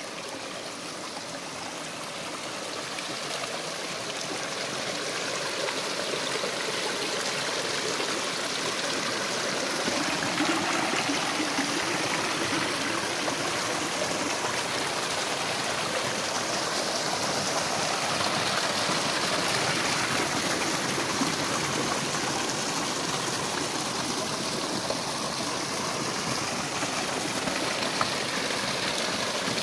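Small rocky mountain stream running over stones and spilling down a little waterfall between boulders: a steady rush of splashing water that grows louder over the first ten seconds or so, then holds even.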